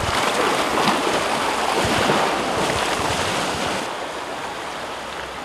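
Sea waves washing against a rocky shoreline, with wind buffeting the microphone; the wash eases slightly near the end.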